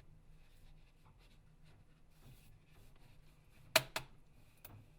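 Faint handling of a Nokia Lumia 1520 as its display assembly is worked loose from the plastic unibody by hand, with a few sharp clicks near the end as the clips let go.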